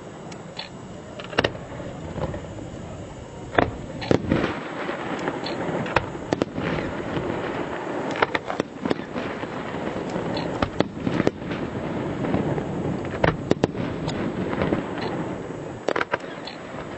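Fireworks display: many sharp bangs of bursting shells at irregular intervals, some in quick clusters, over a continuous rumbling crackle.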